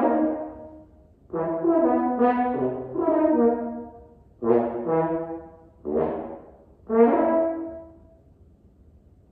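Solo French horn playing unaccompanied in several short, separated phrases, the last one ending about eight seconds in with a held note that fades out.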